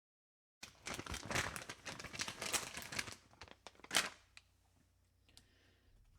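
Dense crinkling and rustling for about two and a half seconds, then a few sharp clicks, the loudest about four seconds in.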